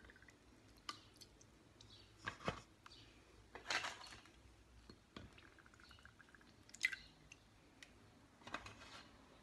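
Soft wet handling sounds as coffee-soaked biscuits are dipped and laid in a metal cake tin: a small squish, drip or tap every second or two, about six in all, with quiet between.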